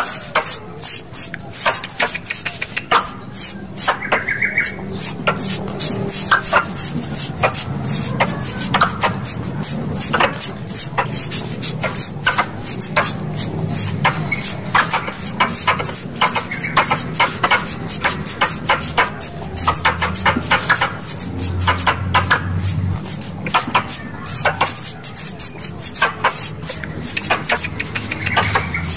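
Squirrel calls played as a lure: a fast, unbroken series of sharp, high chirps, several a second, each dropping slightly in pitch.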